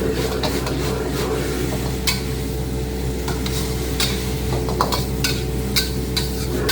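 Flat rice noodles being stir-fried in a wok: a metal spatula scrapes and knocks against the pan in scattered clicks over a light sizzle, with a steady low hum underneath.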